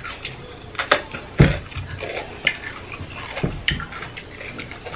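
Close-miked eating sounds: chewing a yellow pepper slice and spicy instant noodles, with irregular sharp clicks and knocks from a metal fork against a glass baking dish.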